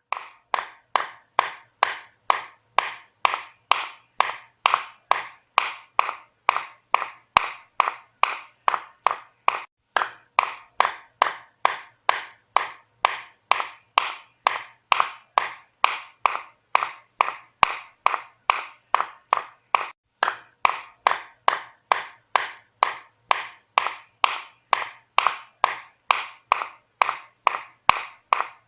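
Hammer striking repeatedly at a steady pace of about three blows a second, each a sharp knock that dies away quickly, with a short break about a third and two-thirds of the way through.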